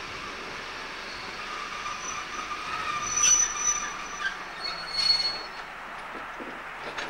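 Wheels of a DR class 202 (V 100) diesel locomotive squealing against the rails as it rolls slowly along the track. The high-pitched squeals come and go over a steady rumble, loudest about three and five seconds in.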